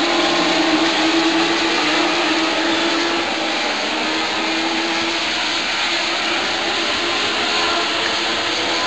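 A pack of INEX Legend race cars running at racing speed, their small four-cylinder motorcycle engines blending into one continuous engine noise. The pitch shifts up and down as cars pass and change speed.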